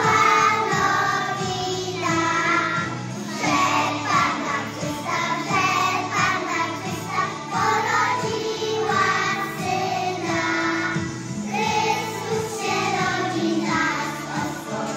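A group of young children singing a song together over an instrumental accompaniment.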